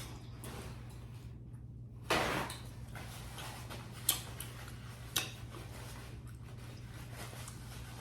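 Close-miked sounds of handling and eating seafood-boil mussels: a loud half-second rustle or scrape about two seconds in, then two sharp clicks of shell or utensil, over a steady low hum.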